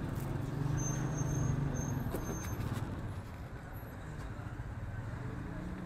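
A steady low engine hum, like a motor vehicle running, fading somewhat after about three seconds.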